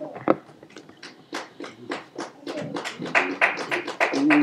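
Hand clapping from a small church congregation, starting with a few scattered claps about a second in and building to steadier, louder clapping near the end. A voice calls out, rising in pitch, just at the end.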